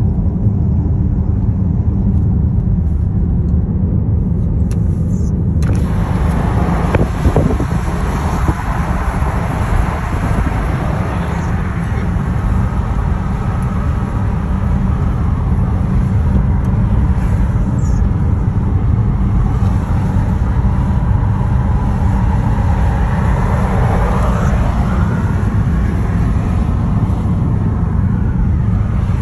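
Car road noise: a steady low rumble, with a wider hiss joining abruptly about six seconds in.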